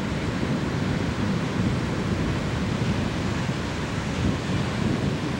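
Ocean surf breaking and washing up the shore, a steady rushing wash with no pauses.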